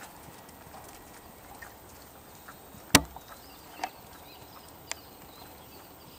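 Belgian Warmblood horse cantering on a sand arena: soft hoofbeats and a few sharp clicks, one much louder about three seconds in.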